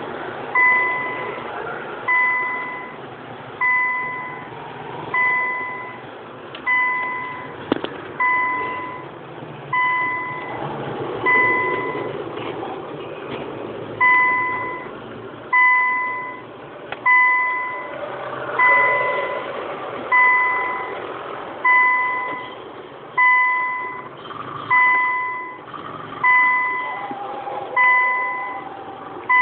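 A vehicle's electronic warning chime, one steady tone dinging about every second and a half, each ding starting sharply and fading.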